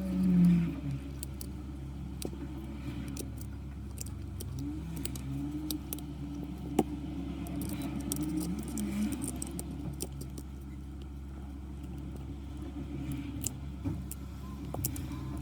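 Scattered small clicks and scrapes of a metal blade prying broken glass off the back of an iPhone 8, over a steady low hum, with one louder knock just after the start.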